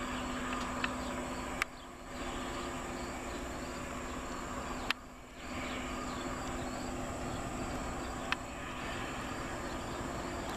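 LORAM rail grinding train passing at a distance, its machinery a steady hum with a low drone, while insects chirp in the surrounding fields. Three sharp clicks, each followed by a brief drop in sound, where the footage is spliced.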